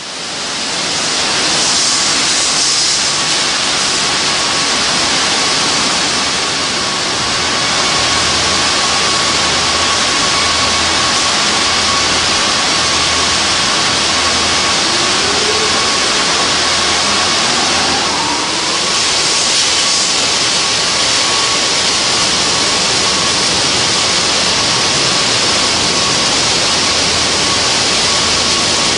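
Automatic car wash running: a loud, steady rushing hiss of spray and air that swells twice, with a faint steady tone and a low rumble underneath.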